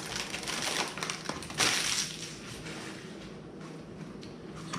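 Plastic wrapper of a wasabi seaweed snack pack crinkling and rustling as it is opened and handled, with a louder crackle about one and a half seconds in.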